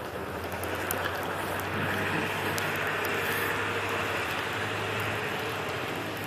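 A motor vehicle passing, probably over a wet or slushy road: a low engine hum and tyre hiss swell, hold for a few seconds, then fade near the end.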